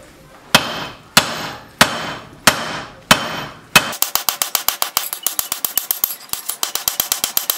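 Hand hammer forging a red-hot knife tang on an anvil. About six heavy, ringing blows a little over half a second apart, then from about four seconds in a fast run of lighter ringing taps, several a second.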